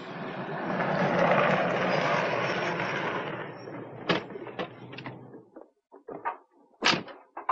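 A limousine pulling up: its engine and tyre noise swell, then fade and stop. A few sharp clicks follow, and near the end the car door opens with a loud clunk.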